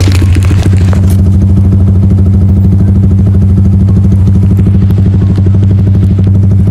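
Motorcycle engine idling close to the microphone: a steady, pulsing low hum.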